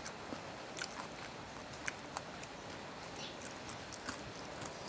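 Faint, sparse wet clicks and smacks of someone eating papaya salad with rice noodles by hand, spread irregularly over a quiet background.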